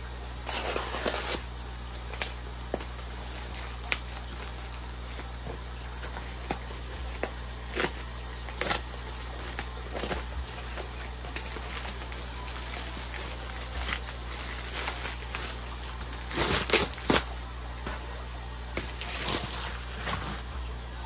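Rustling and scattered light clicks from handling packaging and parts being unpacked, with a few louder rustling bursts, over a steady low hum.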